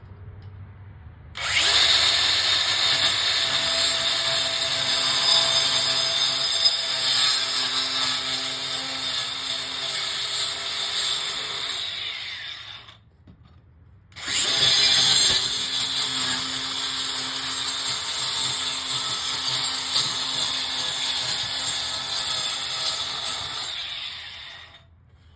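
A power tool runs in two long stretches of about eleven seconds each, stopping briefly about thirteen seconds in before starting again. It gives a steady hum under a strong hiss.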